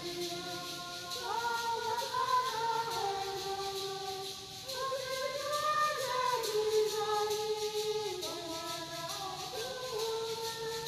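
Recessional hymn, sung with musical accompaniment: a slow melody of long held notes moving step by step.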